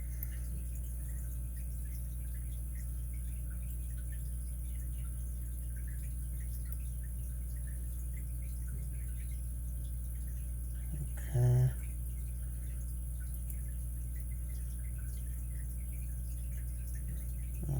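Faint, scattered small metallic ticks of a lock pick and tension tool working the core of a Master 220 removable-core padlock as it is picked to turn, over a steady low electrical hum.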